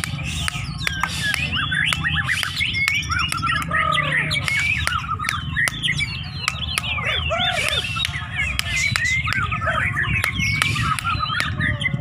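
Several caged white-rumped shamas (murai batu) singing at once in a dense, fast stream of varied whistles, rising and falling glides and harsh chattering notes, with many short sharp clicks among them.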